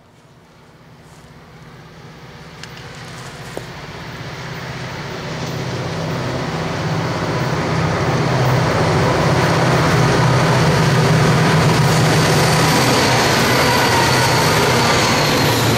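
Three GMD SD40-2 diesel-electric locomotives, each with a 16-cylinder two-stroke EMD 645 engine, approach and pass with a steady low engine drone. The sound grows louder for the first eight seconds or so, then holds level as the units go by.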